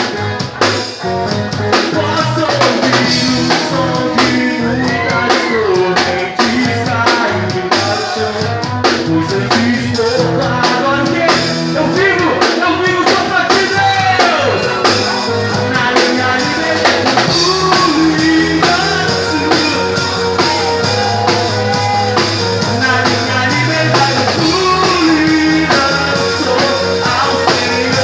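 A band playing a rock song on drum kit, bass and guitar, with a melodic lead line bending in pitch over the steady beat.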